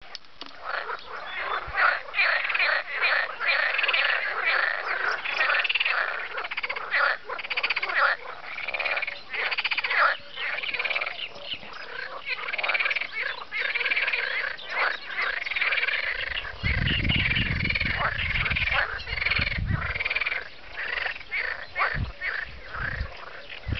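A chorus of frogs calling from a reedy pond, many overlapping rattling croaks without a break. For a few seconds past the middle a low rumble runs underneath.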